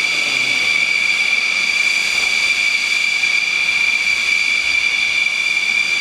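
Weight-shift microlight trike's engine and pusher propeller running steadily in flight: a high, unchanging whine.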